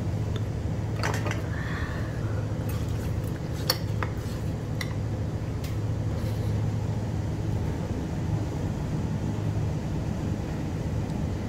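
Light clinks and taps of dishes and cutlery, a few scattered through the first half, the sharpest about four seconds in, over a steady low hum from a fan or ventilation.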